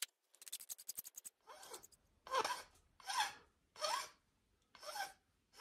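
A hand file scraping across the end of a curly walnut screwdriver handle where the wood meets its brass fitting. First comes a run of quick, short strokes, then slower, longer strokes about one a second.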